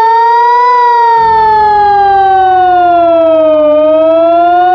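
Hörmann HLS 273/ECN 3000 civil-defence siren wailing loud and steady. Its pitch rises for about a second, falls slowly for about three seconds, then starts rising again near the end.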